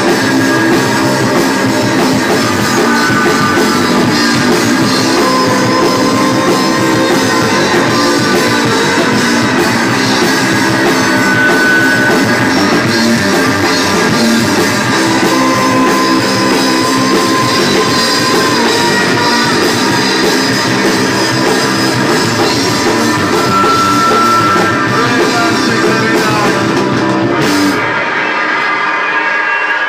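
Live rock band playing loud, with electric guitar and drum kit. The music stops abruptly near the end and crowd noise takes over.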